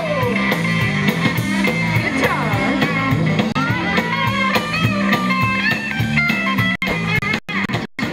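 Live rock band playing: electric guitars, bass and drum kit, with a woman singing into a microphone over the PA. Near the end the sound cuts out in several brief gaps.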